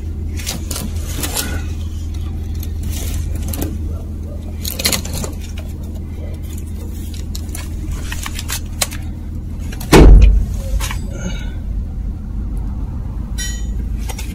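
Metal clinks and knocks from an axle shaft with its hub and brake backing plate being handled and fed into the axle housing, over a steady low hum. A heavy thump about ten seconds in, and a quick rattle of small clicks near the end.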